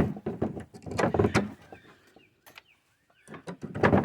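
Knocks, scrapes and creaks of nails being pulled out of old pallet wood: a quick run of knocks in the first second and a half, a pause, then another scraping pull near the end.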